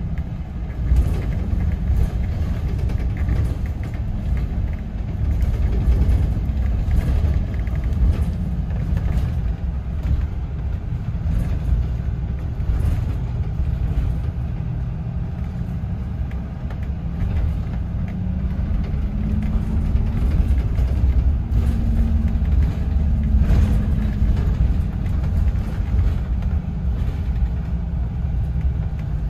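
A London double-decker bus in motion, heard from inside on the upper deck: a steady low engine and road rumble with frequent small clicks and rattles. About two-thirds of the way through, a humming tone rises and then falls.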